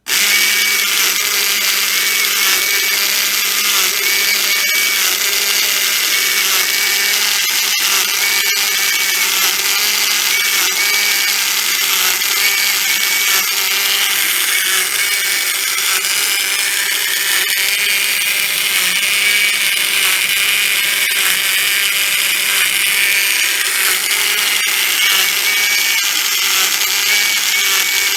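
Vintage Plarail C-62 toy steam locomotive running, its small electric motor and gears whirring steadily, with the built-in whistle gimmick giving a breathy, hissing whistle whose high tone wavers in a repeating pattern.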